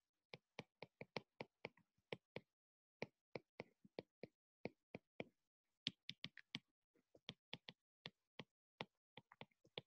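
Stylus tips clicking against a tablet screen during handwriting: an irregular run of light, sharp ticks, about three or four a second, with a couple of short pauses.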